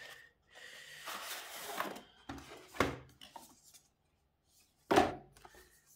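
Mouse packaging being opened by hand: a rubbing, sliding rustle as the box is worked open, then two knocks, the louder one about five seconds in, as parts of the packaging are handled and set down.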